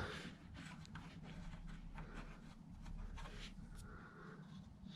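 Faint scraping and small metallic clicks of the wing nuts on an MGA battery hanger being turned by hand, over a low steady hum.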